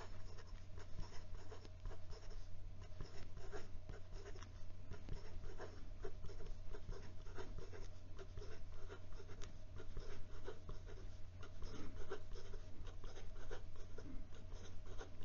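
The 18k gold nib of a Platinum President fountain pen scratching across notebook paper in fast, continuous handwriting strokes, over a low steady hum.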